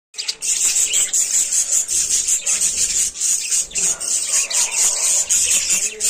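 A flock of budgerigars chattering together in a continuous, dense, high-pitched stream of chirps and warbles.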